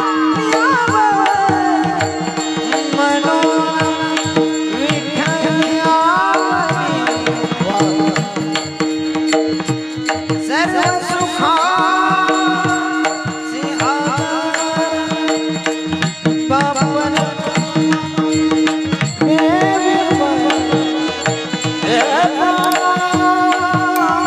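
Marathi devotional abhang sung by a man in long, ornamented phrases over a steady drone, with tabla-like hand-drum strokes keeping the rhythm.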